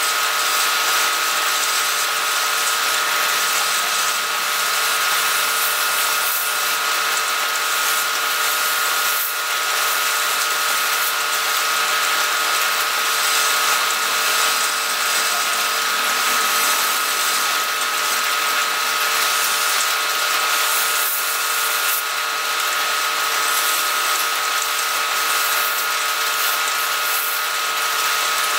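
Wood lathe running steadily with a constant whine, and sandpaper hissing against the spinning turned wood as it is sanded.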